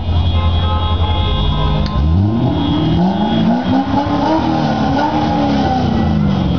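Sports car engine idling, then revved about two seconds in: its pitch climbs for a couple of seconds and falls back down.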